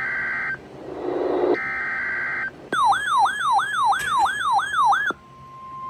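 Emergency Alert System tones on a NOAA Weather Radio broadcast. Two screeching bursts of SAME digital header data come first, then an electronic siren-like wail cycling about three times a second for a couple of seconds. About five seconds in, a steady single-pitch alert tone begins.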